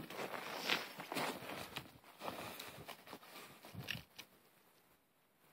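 Footsteps and rustling: scattered scuffs and small clicks that die away about four seconds in.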